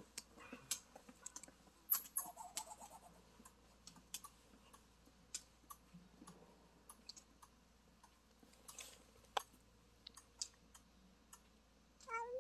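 Scattered faint clicks and ticks, then near the end a short meow from a domestic cat.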